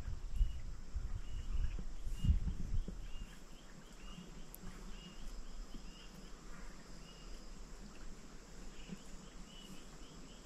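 Animal chirps in the wild: short, high calls repeating every half second to a second, over a faint steady high hum. Low rumbling thumps fill the first three seconds.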